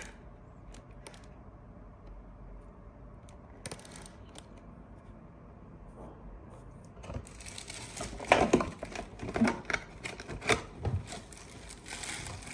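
Clear plastic packaging bag crinkling and rustling as boxed headphones are handled, with small clicks and taps against the cardboard insert. It is faint at first with a few clicks, then gets busier and louder about seven seconds in.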